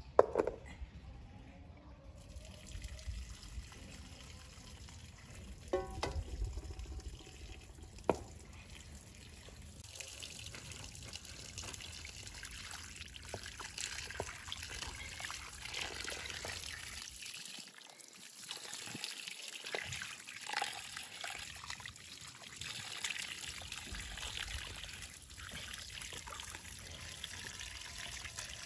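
Clank as a metal pot and an enamel bowl are set down on bricks, then from about ten seconds in an outdoor tap runs steadily into the enamel bowl while raw chicken pieces are rubbed and washed by hand, with splashing and water spilling over.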